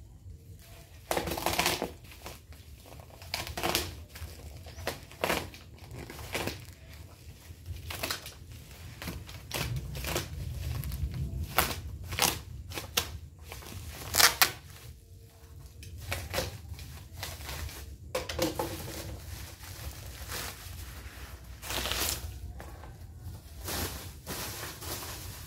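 Black plastic parcel wrapping being slit with a box cutter and pulled off, crinkling and tearing in irregular bursts, the loudest about fourteen seconds in.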